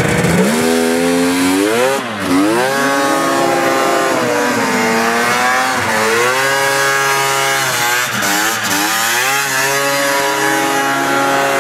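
1996 Polaris XCR snowmobile's three-cylinder two-stroke engine revving hard under throttle. It rises sharply about half a second in, then drops and climbs again several times as the sled spins donuts in the snow.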